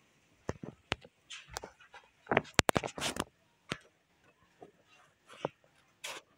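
Irregular clicks, taps and short scuffs of fingers typing on a phone's on-screen keyboard and handling the phone, thickest and loudest a little past two seconds in.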